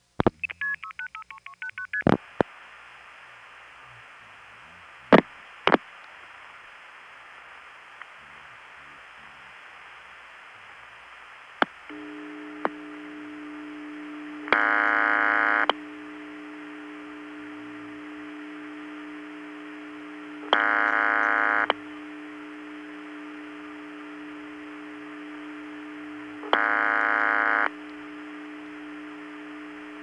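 An analog long-distance telephone call being set up: a rapid razz of speeded-up rotary dialing, then a few sharp switching clicks over line hiss. About twelve seconds in a steady hum comes up on the line, and a buzzy ringback tone sounds three times, about a second each, some six seconds apart.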